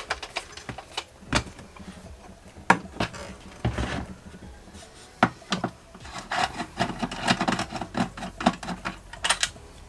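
Hands working on a plastic-cased e-bike battery pack: irregular sharp clicks and taps with some rubbing and scraping, as its fuses are pulled out.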